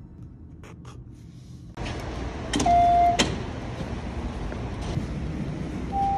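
Subway fare gate beeping briefly with a sharp click as it opens, over the steady hiss and rumble of a subway station. A second, longer beep with a loud click comes near the end.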